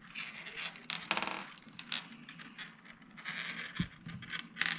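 Candy-coated chocolate buttons (Smarties) being sorted by hand, clicking and sliding against each other and on a paper-covered tabletop in light, irregular taps and scrapes.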